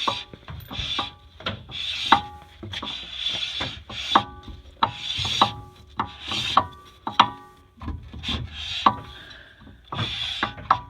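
Newly installed brake rotor and hub spun by hand. The pads rub on the rotor with a scraping hiss, and there is a short metallic ring about twice a second as it turns.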